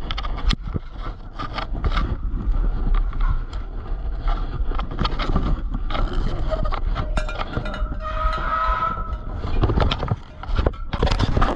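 Rumbling wind and handling noise on a moving camera's microphone, with many scuffs and knocks from movement.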